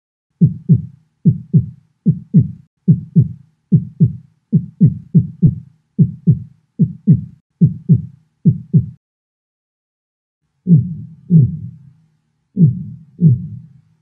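Normal heart sounds, S1 and S2 (lub-dub), made by closure of the mitral and tricuspid valves and then the aortic and pulmonic valves: a steady run of paired low thumps at a little over one beat a second. After a short pause the same pairs come again slowed down, about two seconds apart.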